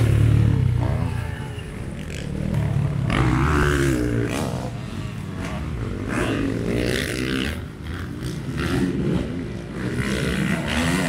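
Motocross bikes' engines revving hard and easing off as riders race past, the pitch rising and falling with the throttle in several surges.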